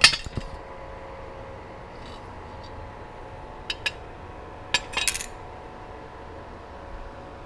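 Sharp metallic clinks and knocks of steel parts being handled in the AK rivet jig: one cluster at the start, two quick clicks a few seconds in, then a rattle of knocks about five seconds in with a brief high ring.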